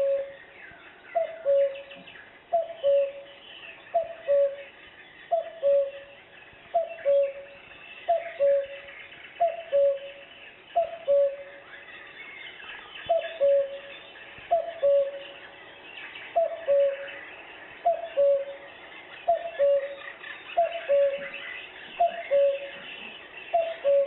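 Recording of a common cuckoo's two-note 'cuck-oo' call, a higher note dropping to a longer lower one, repeated about every second and a half with a short pause about halfway. It is played back through a CD player's speaker.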